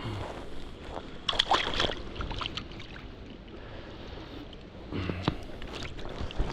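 Stream water splashing and sloshing close by, in short bursts about a second in and again about five seconds in.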